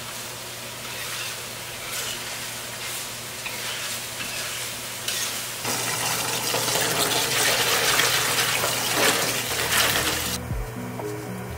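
Eggplant and minced pork stir-fry sizzling in a pan while a spatula stirs it. About six seconds in, water runs and splashes over mung bean sprouts in a plastic basket as a hand swishes them. Soft background music comes in near the end.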